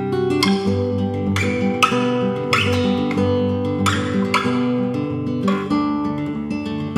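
Background music: an acoustic guitar strumming chords at an easy, regular pace.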